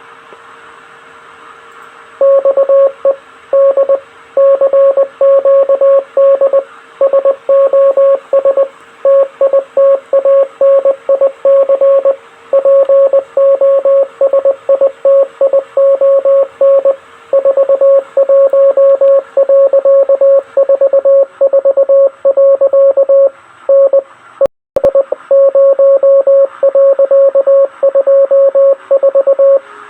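Morse code sent as a single steady beeping tone, keyed in short and long marks over a hiss of radio static: the CQD distress call. The static starts first and the keying begins about two seconds in, with a brief dropout about three quarters of the way through.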